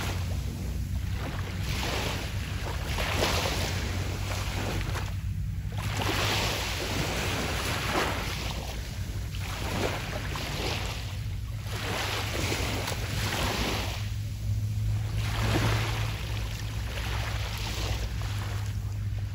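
Small sea waves breaking and washing up the beach, a hiss that swells and fades every two to three seconds, over a steady low hum.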